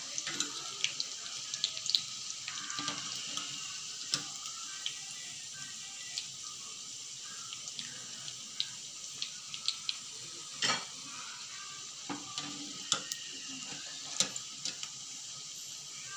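Hot oil sizzling steadily in a kadai of frying mutton keema vadas, crackling with many small sharp pops, as the vadas are lifted out with a wire mesh skimmer. A louder scrape, likely the skimmer against the pan, comes about two-thirds of the way through.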